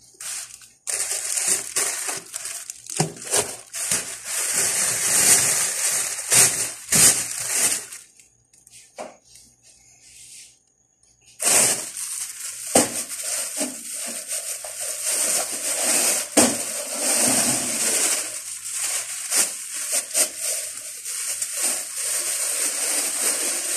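Thin plastic bags crinkling and rustling as they are handled and shaken open, with a break of about three seconds near the middle.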